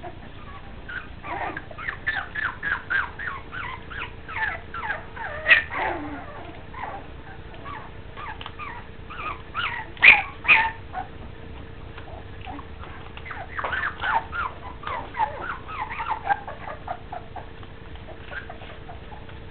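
Welsh terrier puppies whimpering and yipping in quick runs of short, high squeals, in three spells with short pauses between, the sharpest yelps about halfway through.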